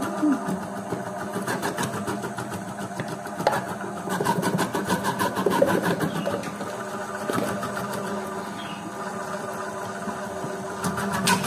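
Electric potato and carrot dicing machine running: a steady motor hum with a rapid, even clatter from its cutting mechanism.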